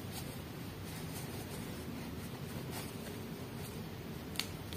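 Soft rubbing of knit gloves on a foam squishy toy as it is squeezed, with a few faint clicks and one sharper tick near the end, over a low steady room hiss.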